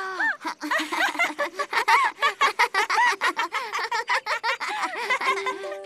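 Cartoon children's voices giggling and laughing together in quick, repeated peals. Light background music comes in near the end.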